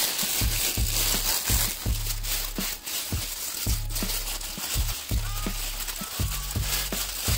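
Background music with a steady, bass-heavy beat.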